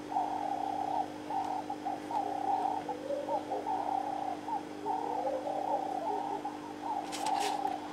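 A dove cooing over and over, a run of short coos at a fairly steady pitch, with a faint steady hum beneath. A brief rustle comes near the end.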